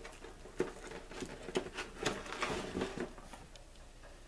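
Irregular light taps and rustles of a cardboard model-kit box and the paper inside it being handled, about one or two small knocks a second.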